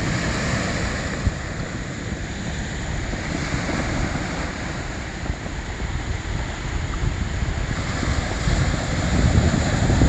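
Sea waves washing onto a pebble beach, with wind buffeting the phone's microphone in low rumbling gusts that grow stronger near the end.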